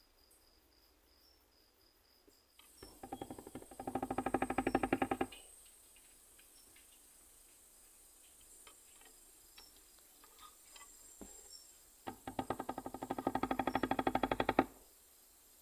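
Nesonotus reticulatus katydid stridulating in two bursts of rapid clicking pulses, each about two and a half seconds long. Each burst starts with a few spaced clicks and then speeds into a dense, even run. Faint scattered clicks fall between the bursts.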